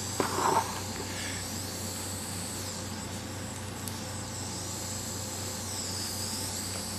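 Steady electrical hum and hiss, with a few light clicks and rustles of small parts and wires being handled in the first second or so.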